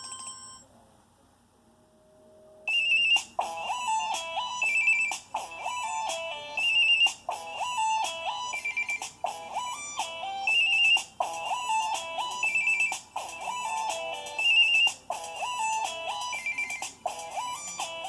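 Preloaded ringtones playing on a Samsung Array phone's speaker. One tone cuts off within the first second. After a short pause, about three seconds in, a new synthesized ringtone starts: a melody of short stepped notes that repeats in phrases about every second and a half.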